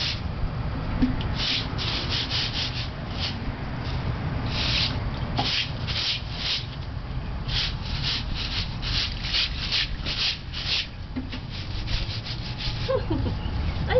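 Straw broom sweeping wet concrete: a quick run of scratchy bristle strokes, about two a second, that stop a few seconds before the end.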